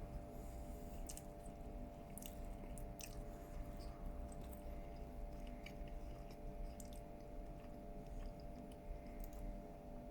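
A person chewing crispy shredded chicken, with scattered small crunches and mouth clicks, over a steady faint hum.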